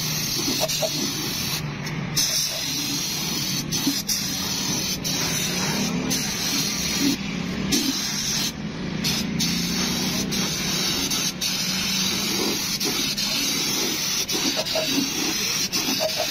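Compressed-air gravity-feed spray gun hissing steadily as it sprays paint, cutting out briefly a few times when the trigger is released.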